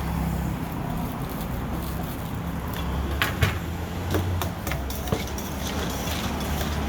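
A steady low hum with a few short clicks and knocks about halfway through.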